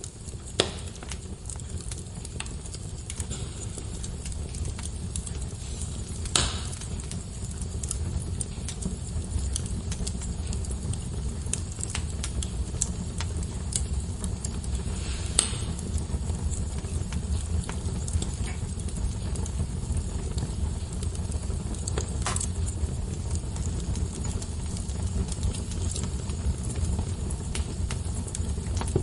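Wood fire burning in a fireplace: a steady low rumble of flame with scattered small crackles and a few sharper pops.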